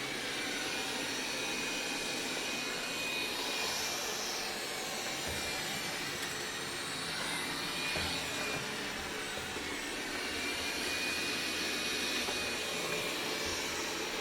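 Dreame L10 Ultra robot vacuum running steadily: an even fan noise with a faint high whine that comes and goes and wavers slightly in pitch.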